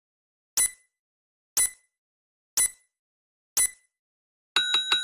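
Quiz countdown timer sound effect: a sharp tick once a second, four times, then near the end a quick rattle of clicks and a ringing bell-like tone as the count runs out.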